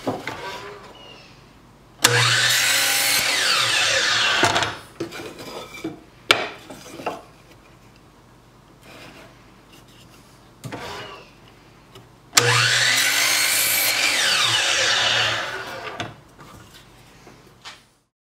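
Electric miter saw cutting through a pine board twice: each time the motor starts suddenly and runs loudly for about three seconds through the cut, ending in a falling whine. Between the two cuts there is lighter knocking as the wood is handled and repositioned.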